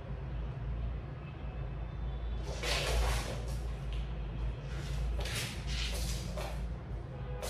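Cats playing with toys on a floor mat: a few short scuffling, rustling noises as a cat paws and bats at a toy, over a steady low hum.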